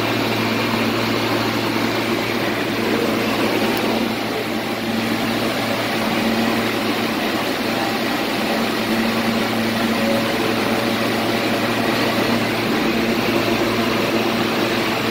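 Steady hum and whir of a stopped R160 subway car's air conditioning and auxiliary equipment, with a low constant drone under it.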